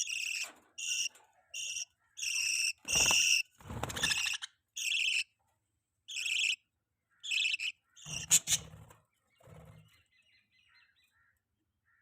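Budgerigars giving a string of short, high chirping calls in quick succession, with a sharp knock about eight seconds in; the calls die away near the end.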